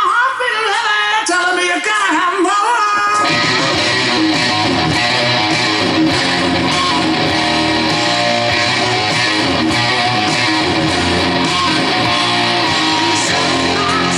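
Electric guitar played through a Boss GT-6 multi-effects processor, with a band. For about the first three seconds a bending melodic line plays on its own with no bass under it; then the full band comes in with bass and drums.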